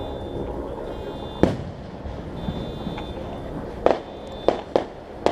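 Fireworks going off: five sharp bangs, a single one about a second and a half in, then four in quick succession near the end.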